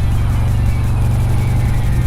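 2018 Harley-Davidson Road Glide's V-twin engine running steadily at highway speed, picked up by a helmet-mounted microphone, with music playing alongside.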